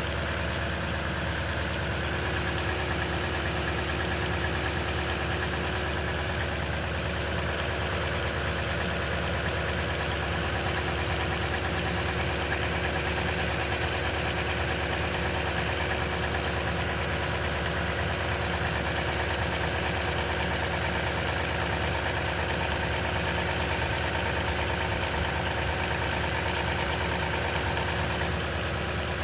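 2010 Toyota Tundra engine idling steadily after a cold start, with the noise the owner takes for timing chain noise.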